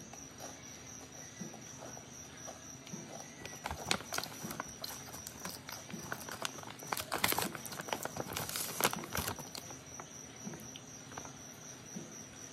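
Crunchy chips crackling in quick bursts of sharp clicks, starting about four seconds in and densest around seven to nine seconds, as the chips are eaten and handled close to the microphone.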